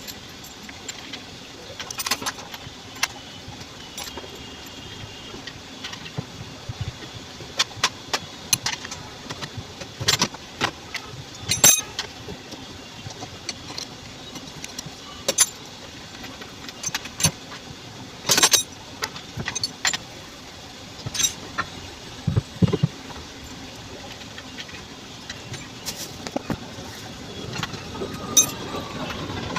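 Irregular sharp metallic clinks and knocks, as of tools and metal parts being handled while working on a front-load washing machine, over a steady low hum. A falling whine sounds near the end.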